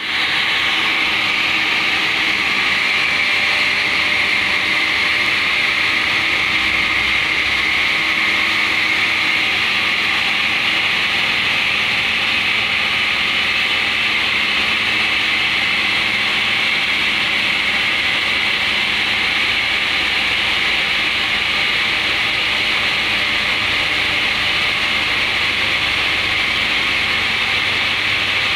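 OSC-Titan CNC five-axis bridge saw's water-cooled blade cutting steadily through a stone slab: a continuous, high-pitched grinding hiss that holds even throughout.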